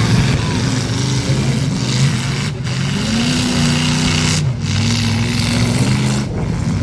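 Demolition derby cars' engines running loud and continuously, revving up and down as they drive and ram each other in the arena.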